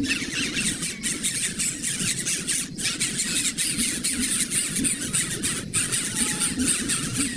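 Many birds chirping and squawking at once in a dense, continuous chatter.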